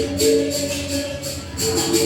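Capoeira music: a berimbau sounding short repeated notes that switch between two pitches, over a steady rhythmic rattle of a caxixi shaker or jingles.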